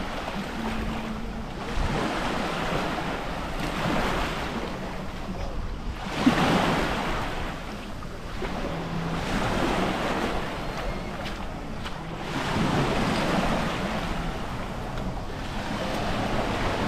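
Sea waves washing onto the shore, swelling and falling back every few seconds, with wind buffeting the microphone.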